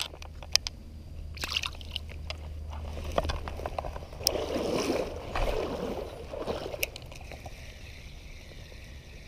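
Creek water sloshing and gurgling around a hand as a small brown trout is let go into the stream, with scattered light clicks and rustles from handling.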